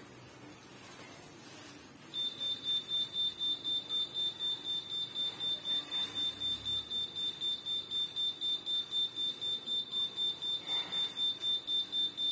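UPS battery backup alarm beeping rapidly in one high tone, about four beeps a second, starting about two seconds in. The power is cut and the UPS battery is running out.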